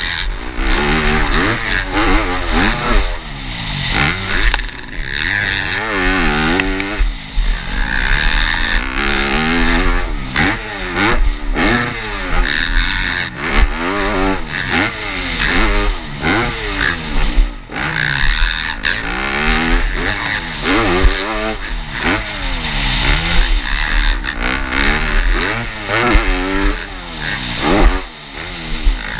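Yamaha motocross bike's engine revving hard and falling back over and over as the throttle is opened and chopped through jumps and turns, heard from on the bike.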